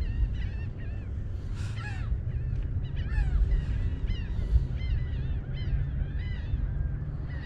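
A group of birds calling over and over, many short calls that rise and fall in pitch, several a second and overlapping, over a low steady rumble.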